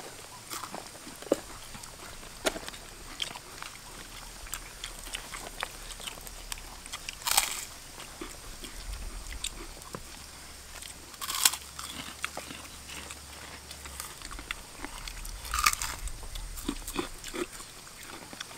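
People chewing and crunching crispy fried food eaten by hand: small crunches throughout, and three louder crunches about seven, eleven and fifteen seconds in.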